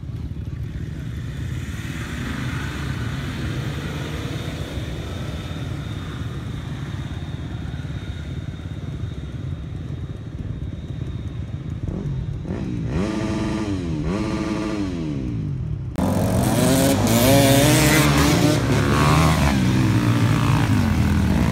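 Off-road SUV engine running with a steady low rumble, then revving up and down twice about twelve seconds in. After an abrupt cut, dirt bike engines rev loudly and unevenly.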